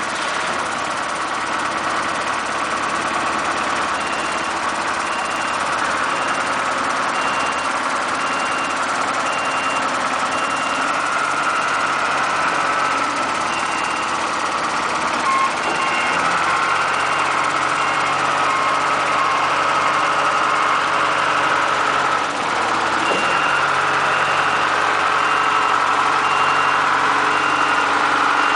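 A John Deere 310G backhoe loader's diesel engine running steadily. Its reversing alarm beeps in a regular series from about four seconds in, stopping and starting again a few times.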